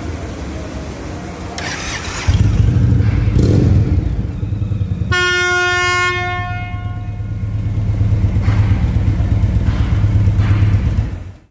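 Aftermarket train horn on an Indian Chief Dark Horse motorcycle sounding one blast of about a second, about five seconds in. The bike's V-twin engine is running underneath, louder from about two seconds in.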